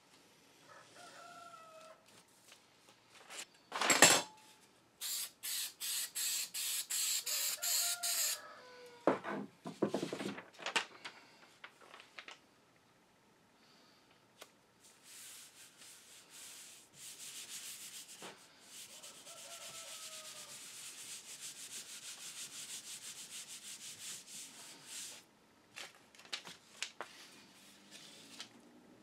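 Hands rubbing and smoothing a paper pattern down onto a hardboard sheet, with rustling and scraping of paper against board. A sharp knock comes about four seconds in, followed by a quick run of even strokes, and later a long, soft, steady hiss.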